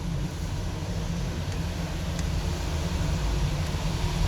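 Steady low background rumble, with a couple of faint light clicks about one and a half and two seconds in.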